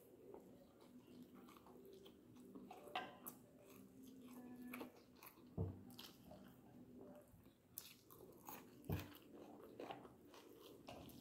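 A person eating string hoppers with dried-fish curry by hand: faint chewing with scattered clicks, and a few sharper knocks, one about halfway and one near the end.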